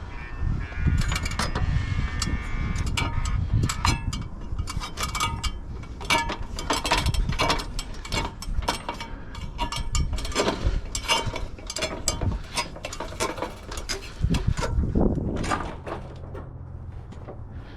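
Metal extension ladder clanking and rattling with many irregular clicks and knocks as someone climbs down it.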